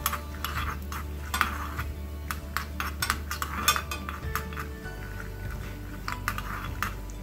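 Metal spoon stirring and scraping in a small steel frying pan of ghee with coconut slices and peanuts, making many quick irregular clicks and scrapes.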